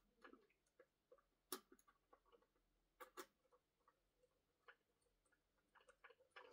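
Faint, irregular clicks and taps of plastic toy parts being handled and fitted together, with two sharper clicks about a second and a half and three seconds in.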